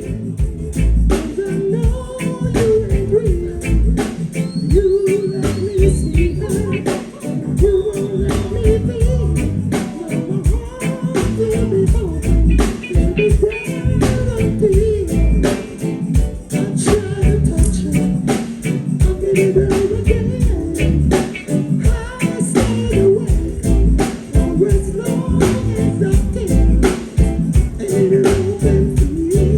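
Live reggae band playing: bass and drums keep a steady beat under a wavering lead melody line.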